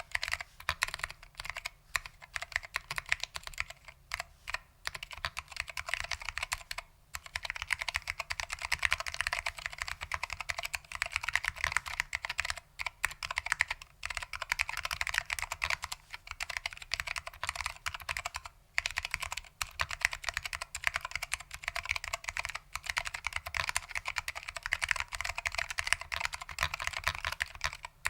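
Fast, steady typing on a Lunar AEK 65 keyboard with foam-damped SKCM Orange Alps switches: a dense run of keystroke clicks, broken by a couple of brief pauses.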